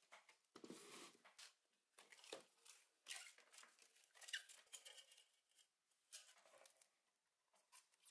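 Faint, irregular crinkling, rustling and short rips as gloved hands unwind an LED strip from its plastic reel and handle a box lined with aluminium foil.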